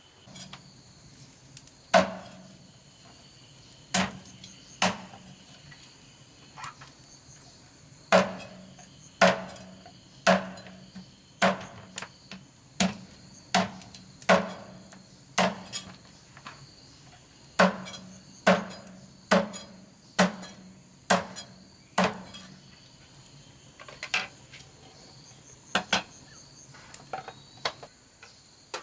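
Meat cleaver chopping cooked meat on the bone on a thick wooden chopping block: sharp single chops, roughly one a second with short pauses, over a steady drone of insects.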